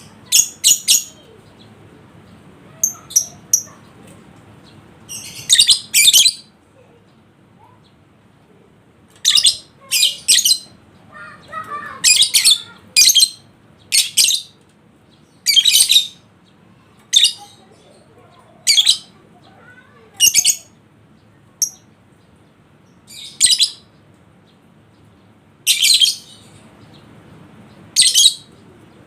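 Lovebird giving short, shrill chattering calls, one burst every second or two.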